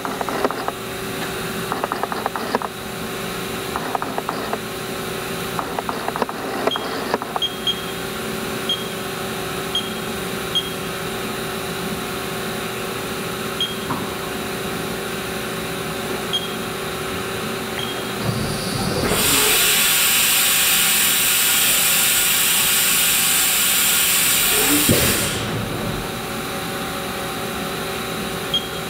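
A 2012 Haas VF-2 CNC vertical mill running behind its closed enclosure: a steady machine hum with scattered clicks early on. About two-thirds of the way in, a loud steady hiss comes in for about six seconds, then stops.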